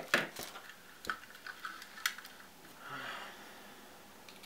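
Handling clicks and taps of small plastic parts as a 9-volt battery and its snap connector are fitted into a wireless microphone transmitter's battery compartment: a few sharp clicks in the first two seconds, then a soft hiss about three seconds in.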